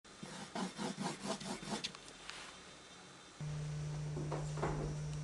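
A quick run of short scraping strokes, about five a second, fading after about two seconds. From about three seconds in, a steady low hum.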